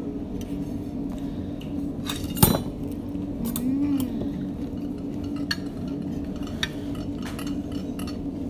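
Clinks and light knocks of plates and cutlery at a meal table, scattered through, with one louder clink about two and a half seconds in, over a steady low hum.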